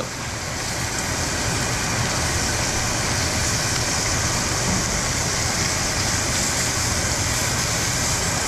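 Sheepshead fillets sizzling steadily in hot butter and oil in a cast iron skillet on medium-high heat, over a steady low hum.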